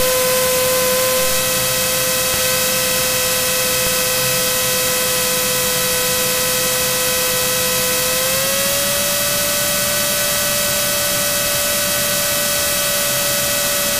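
Cirrus SR22's six-cylinder piston engine and propeller droning steadily inside the cockpit, with a strong held tone. Its pitch steps up a little about two-thirds of the way through and again near the end, as power comes up.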